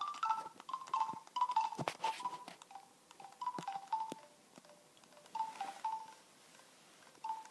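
Mobile phone keypad tones, beeps from two phones' buttons pressed in turn to pick out a pop melody, then a second tune after a short pause, with a few button clicks. They are heard through laptop speakers, and the beeps grow sparser in the second half.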